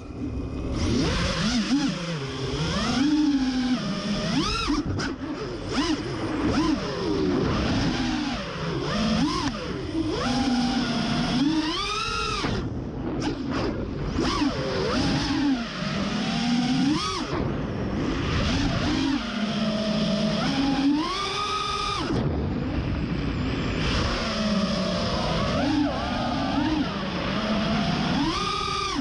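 FPV freestyle quadcopter's brushless motors whining, the pitch swooping up and down again and again as the throttle is punched and eased.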